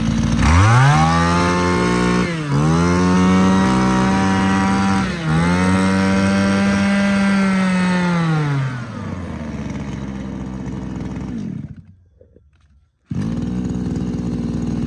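Shindaiwa 23cc two-stroke brush cutter engine on a test run: it is revved up to high speed about half a second in, held there with two brief dips at about two and a half and five seconds, then throttled back and slowing to idle. It revs very sharply and fast. It cuts out near the end, and after about a second a steady engine sound returns suddenly.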